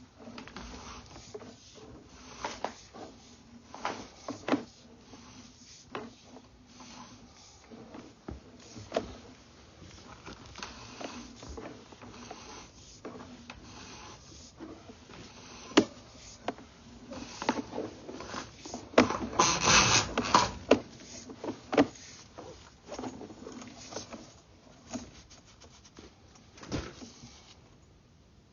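Irregular rubbing and scraping with scattered sharp knocks as a sewer inspection camera's push cable is fed through a drain line, growing into a louder, denser stretch of scraping about two-thirds of the way through.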